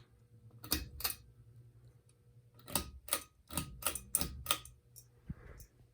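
Menards Eros ceiling fan running with a low steady hum, over which come sharp clicks: two near the start, then a run of about seven at roughly three a second in the middle.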